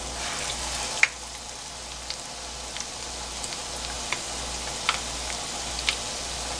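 Battered squid strips deep-frying in hot oil: a steady sizzle with scattered sharp crackles and pops.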